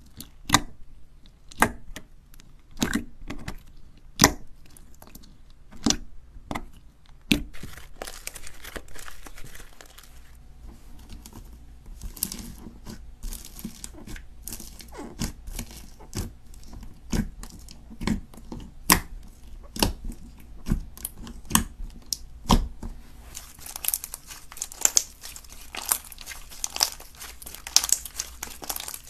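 Slime filled with beads being pressed, poked and stretched by hand: sharp pops and clicks about once a second at first, then a denser crackling near the end.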